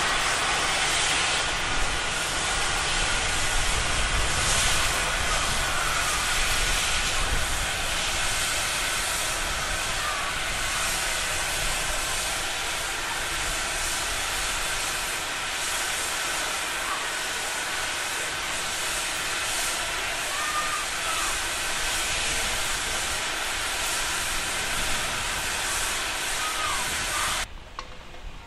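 Steam locomotive blowing off steam: a loud, steady hiss that eases slightly over time and cuts off suddenly near the end.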